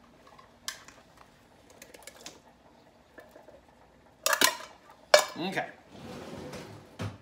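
Kitchen clatter of dishes and cutlery: a few light clicks, then two loud metallic clanks about four and five seconds in, and a short rattle near the end.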